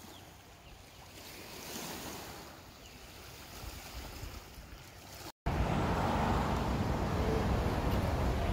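Soft outdoor air noise with wind on the microphone. About five seconds in it cuts off abruptly and gives way to louder, steady street noise with a low wind rumble on the microphone.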